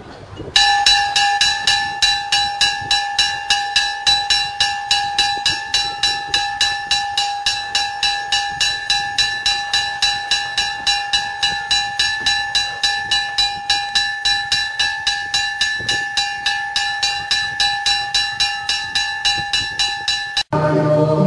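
A single church bell rung rapidly and evenly by its clapper, about three to four strikes a second, each stroke ringing at the same pitch. It starts about half a second in and stops abruptly near the end.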